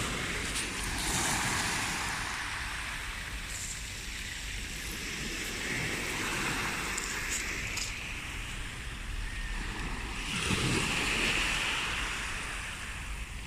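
Small sea waves washing onto the shore, rising and falling in slow swells, with a bigger wash about ten seconds in; wind rumbles on the microphone throughout.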